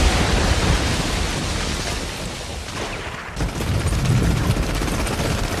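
A shell explosion, a deep rumble that fades over about three seconds. From about three and a half seconds in, a low rumble comes back with scattered gunshot cracks.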